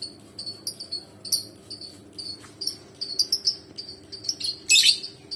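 Lovebirds chirping: short, high, shrill chirps repeating quickly and unevenly, with one louder, harsher call near the end.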